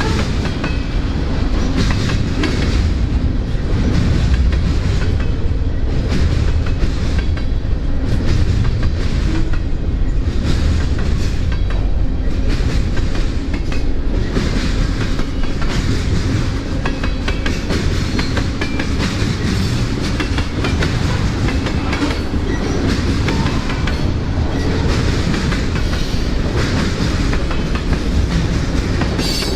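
CSX freight train's cars rolling past on the main line: a steady loud rumble of wheels on rails with repeated clicks as the wheels cross the rail joints.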